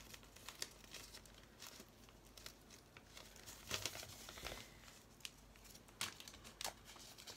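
Faint crinkling and rustling of a plastic pull-bow ribbon and its clear packet being unpacked and handled, with scattered small crackles and a few louder crinkles about four and six seconds in.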